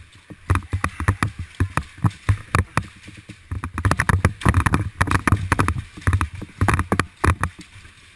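Irregular knocks, thuds and clatter, thickest through the middle: a head-mounted GoPro and a player's gear banging around as he moves.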